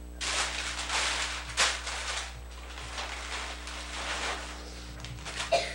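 Rustling and crinkling as a toddler's hands rummage in a Christmas stocking, loudest in the first two seconds with one sharper crackle about a second and a half in, and more rustling near the end, over the steady low hum of an old VHS home-video recording.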